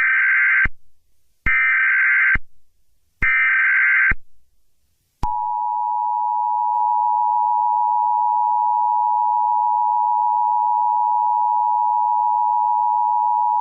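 Emergency Alert System alert opening: three short, harsh bursts of SAME header data, each just under a second long, then the steady two-tone EAS attention signal starting about five seconds in and holding for about eight seconds.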